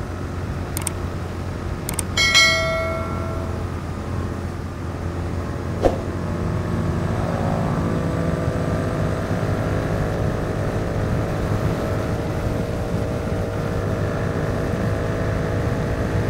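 Royal Enfield Continental GT 650's parallel-twin engine running at highway cruising speed under steady wind rush, with a few sharp clicks and a brief metallic ringing ping about two seconds in. From about seven seconds in, a steadier engine note comes up and holds.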